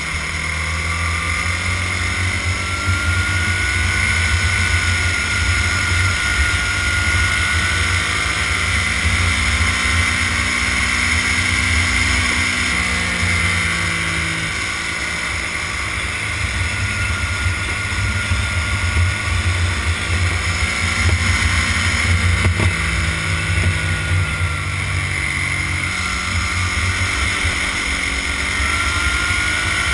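Racing kart engine at full race pace, its note climbing on the straights and dropping back for the corners several times, with a heavy low rumble of wind buffeting the onboard microphone.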